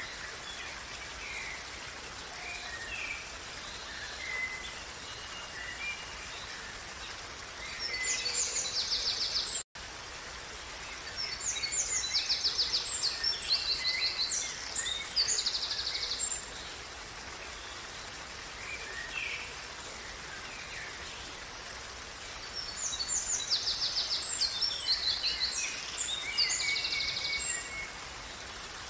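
Steady running water of a creek with birds singing over it: a songbird gives three long bouts of fast, bright trilled song, with scattered short chirps between them. The sound drops out for a split second about ten seconds in.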